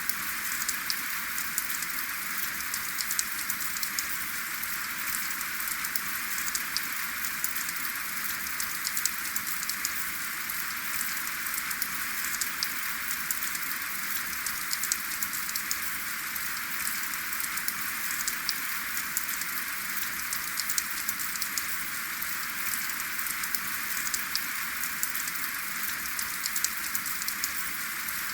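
Steady rain without thunder: an even hiss of falling rain, dotted with many small ticks of drops striking nearby.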